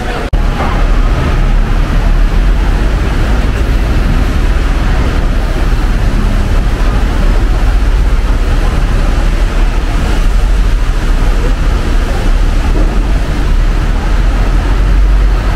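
Steady city street traffic noise: a loud low rumble of passing vehicles with an even hiss over it, cutting in sharply just after the start.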